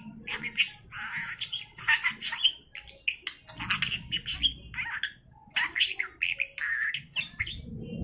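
Pet budgerigar chattering in rapid short bursts and mimicking human words: "Yeah, Bibi's", a laugh, then "Okay, Bibi bird".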